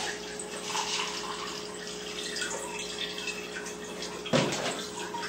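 Water poured from a glass jar into a small plastic filter container, trickling and splashing. A steady low hum sits under it, and a brief louder noise comes about four seconds in.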